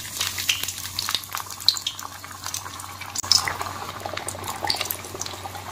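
Methi mathri dough pieces deep-frying in hot refined oil in a kadhai: a steady sizzle with many small crackles and pops.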